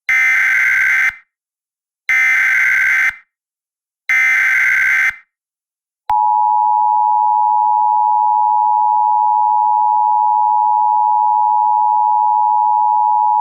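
Emergency Alert System SAME header: three bursts of screeching digital data tone, each about a second long and about a second apart. About six seconds in, the steady two-tone EAS attention signal starts and holds.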